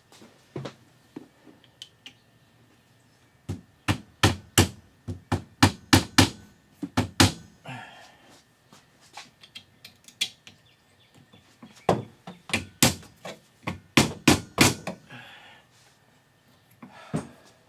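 A series of sharp, irregular knocks and taps in two bursts of several seconds each, with a few scattered taps between, from hands fitting parts back into place during reassembly of a car's windshield wiper linkage area.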